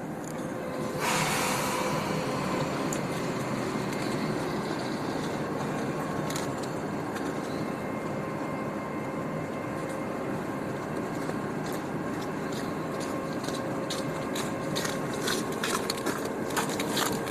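TEP70 passenger diesel locomotive's 16-cylinder diesel engine running steadily beside the train, with a hiss that comes in suddenly about a second in. Near the end come a run of short sharp clicks.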